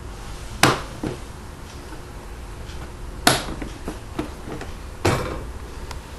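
Three sharp clacks of hard kitchen items being handled, about a second in, past the middle and near the end, each followed by a brief rattle of smaller clicks.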